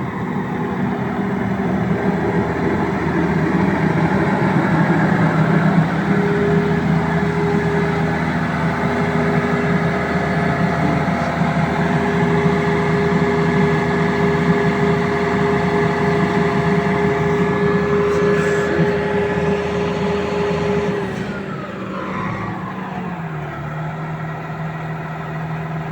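Volvo 380 excavator's diesel engine running at high revs, then the revs fall away about 21 seconds in and it settles to a lower idle.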